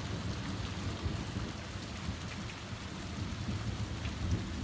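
Thunder rumbling low and continuously under steady rain, with faint taps of raindrops.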